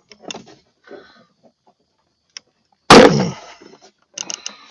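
Light clicking and rustling of hands at work, then one sharp, very loud bang about three seconds in that dies away over about half a second, followed by a few quick clicks near the end.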